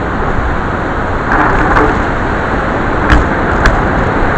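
Heavy rain falling in a steady, dense hiss that grows louder about a second in, with a few sharp ticks about three seconds in.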